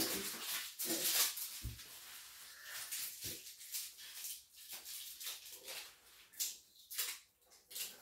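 Rustling and scraping handling noises, with a low thud a little under two seconds in and a softer one about three seconds in.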